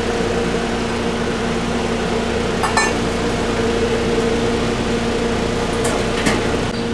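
Steady, pitched machine hum of a food truck's kitchen equipment running, with a few brief light clinks around three and six seconds in.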